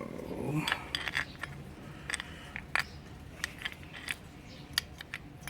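Irregular light metallic clicks and clinks as new rear brake pads and caliper parts are handled and fitted into a motorcycle's rear brake caliper.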